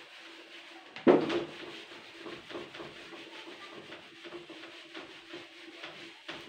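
Whiteboard duster being rubbed across a whiteboard in quick repeated wiping strokes, with a sharp knock against the board about a second in.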